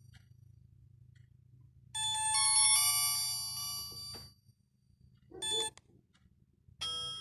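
An Alcatel One Touch 1013D mobile phone playing its built-in ringtones through its small speaker: a short melody of bright bell-like tones from about two seconds in, fading out after about two seconds, a brief blip a little after halfway, and the next ringtone starting near the end. A faint low hum runs underneath.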